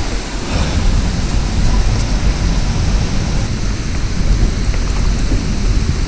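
Steady rushing water from a stream and waterfall, with wind rumbling on the microphone.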